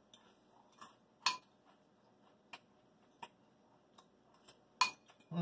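Metal fork clinking against a glass bowl of salad: a handful of light, irregular clinks, the loudest about a second in and near the end.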